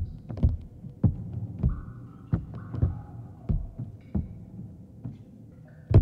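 Irregular dull thuds of juggling balls being thrown and caught, one or two a second, over a faint sustained musical drone.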